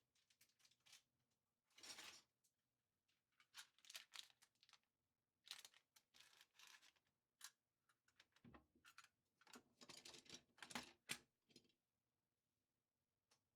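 Faint handling noises from sorting a cutlery drawer: light clinks, scrapes and rustles as utensils and drawer items are picked up and set down, in irregular bursts that pause near the end.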